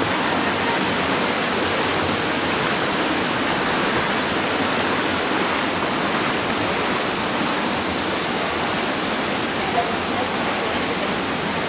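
Steady, even rushing noise of a large indoor competition swimming pool hall, like running water, with no break or change.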